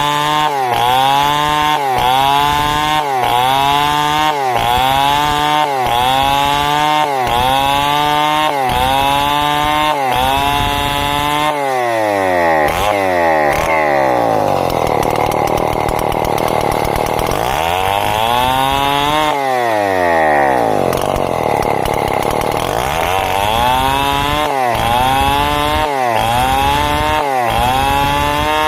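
Chainsaw cutting through timber to saw out planks. For the first ten seconds the engine pitch dips and recovers about once a second as the chain loads and frees. Through the middle the pitch sinks slowly and climbs back twice, then the once-a-second pulsing resumes near the end.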